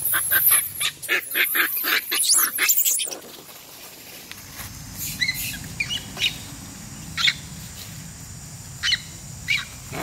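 Macaques screaming in a fight: a rapid string of loud, shrill shrieks for about the first three seconds, then a few short, separate calls.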